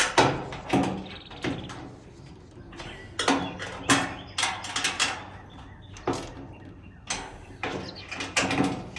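Irregular metallic clanks, knocks and rattles from handling thin galvanized sheet-metal panels and hand tools while assembling a raised garden bed, with a few sharper knocks standing out.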